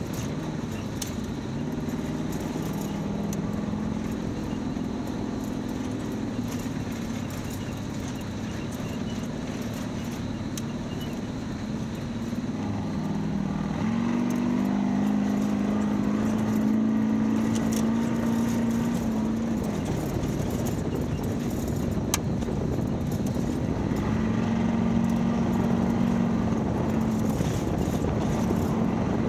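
A 1972 Ford Bronco's engine running under load while driving on a dirt off-road course, its pitch rising and falling with the throttle, over a steady noise of tyres and wind.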